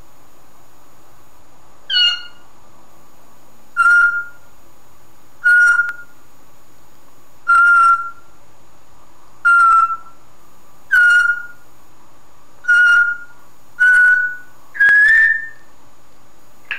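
Congo African grey parrot whistling the same short, clear note over and over, nine times at roughly two-second intervals. Each note starts sharply and dips slightly in pitch, and the last comes out a little higher and rising.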